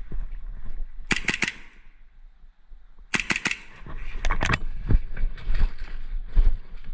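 Airsoft guns firing three short bursts of rapid shots: about a second in, at about three seconds, and again about a second later, with low thuds and rumble underneath.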